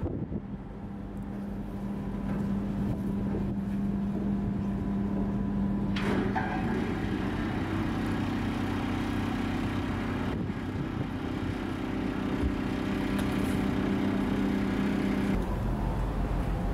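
Steady low mechanical hum of a ship's machinery with a held tone, changing abruptly about six, ten and fifteen seconds in.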